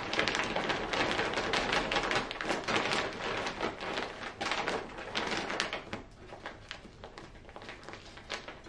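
Potting mix being poured from a plastic bag into a plant pot: the bag crinkles and the soil rustles in as a dense run of fast crackles, which thins out and quietens about six seconds in.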